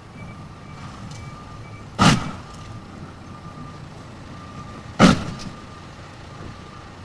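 Two loud thuds about three seconds apart as a snow-covered Dacia Duster slides on the icy street into parked cars. Between them a faint repeated beeping, about twice a second, runs over a steady low background noise.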